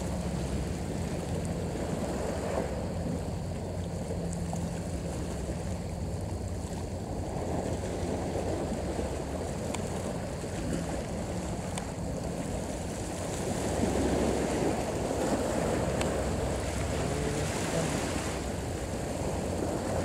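Seaside ambience: steady wind and water noise from the sea, swelling for a couple of seconds about 14 seconds in, with a faint low hum on and off underneath.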